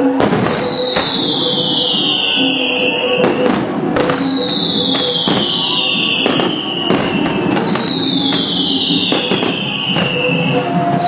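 Fireworks going off: a dense run of sharp bangs and crackles, with a long whistle falling in pitch over about three seconds, repeating roughly every three to four seconds.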